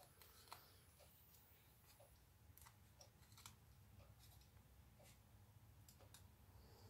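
Near silence, broken by faint, scattered small clicks as fingers handle a cardstock piece and double-sided adhesive tape.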